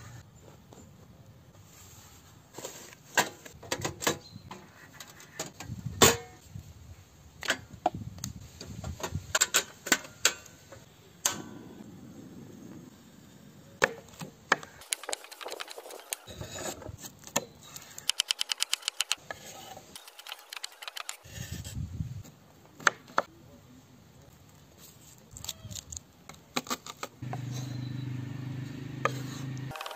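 Kitchen knife chopping vegetables on a wooden cutting board: irregular sharp knocks, with a fast run of quick chops about two-thirds of the way through. A low steady hum comes in near the end.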